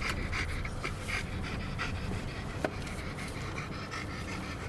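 A dog panting quickly and evenly, about three breaths a second, inside a moving car, with the low rumble of the car underneath.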